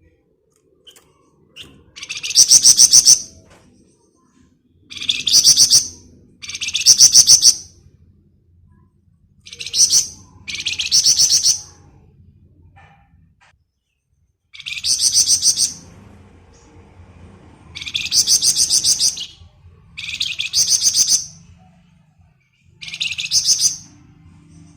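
Flamboyan songbird giving its rapid rattling 'ngebren' trill: nine bursts of very fast, high notes, each about a second long, with short pauses between them.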